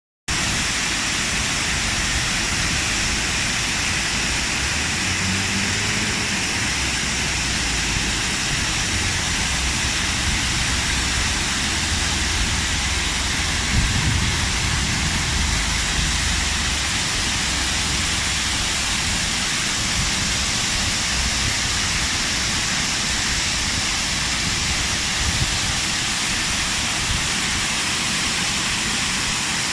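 Several waterfalls splashing down a rock face into a swollen river, a steady rushing of falling water. Brief low rumbles come and go near the middle.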